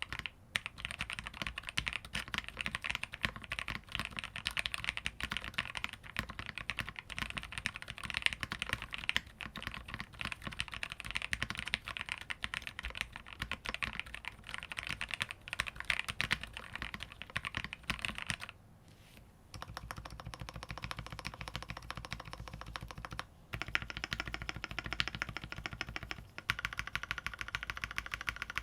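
Typing on a Phase One 65% keyboard with lubed, filmed Gateron Ink Black linear switches on a polycarbonate plate and DSA keycaps: a continuous fast patter of keystrokes. It breaks off for about a second around two-thirds of the way in and again briefly a few seconds later.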